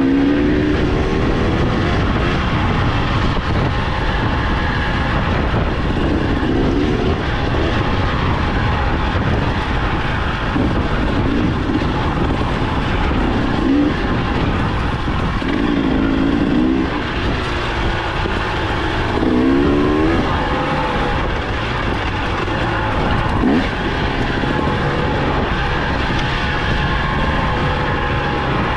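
Dirt bike engine running under a rider on a downhill trail, the throttle opened briefly every few seconds so the engine note rises in short sweeps over a steady rushing noise.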